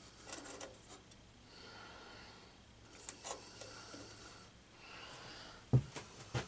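Quiet handling noises of parts and tools being moved: faint rustling and light taps, with two sharp knocks near the end.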